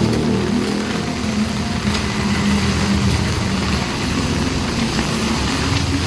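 Heavy rain falling steadily on wet pavement, with the low hum of a motor vehicle engine running underneath.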